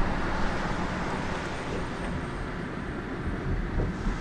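Steady low rumble of vehicle road noise.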